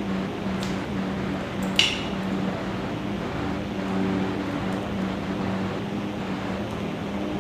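Small sharp clicks of a network cable's wires and a plastic RJ45 connector being handled, one louder click about two seconds in, over a steady hum.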